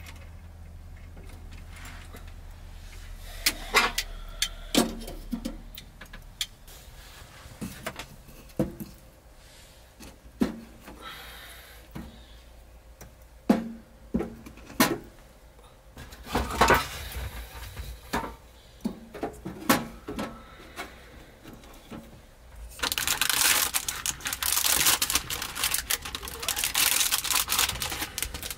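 Split firewood knocking and clunking as it is loaded into a wood-burning sauna stove, with its metal door and fittings handled. Near the end a loud, dense crackling sets in and keeps going.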